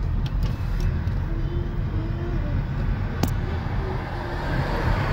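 Car cabin noise while driving: a steady low rumble of engine and tyres on the road, with a single sharp click about three seconds in.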